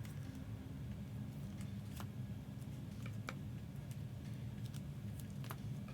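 A few faint ticks of trading cards being handled, over a steady low hum.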